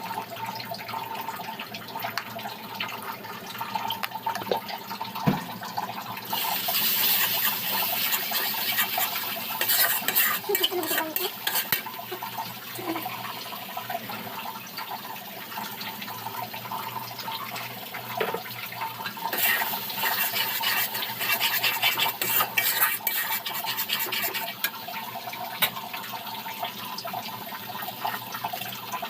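Washing at a kitchen sink: hands rubbing and swishing things in water, with light knocks against a bowl or dish. There are two longer spells of scrubbing and splashing, one starting about six seconds in and one about two-thirds of the way through.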